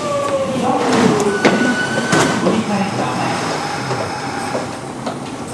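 Hitachi GTO-VVVF inverter of a Kintetsu 1026 series electric train whining and falling steadily in pitch as the train slows to a stop. The whine cuts off with a click about a second and a half in, and a short higher tone and another click follow.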